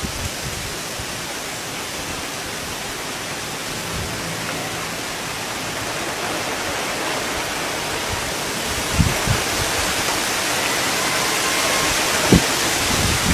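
Rainstorm: a steady hiss of heavy rain and wind that swells slightly, with a few low gusts thumping on the microphone near the end.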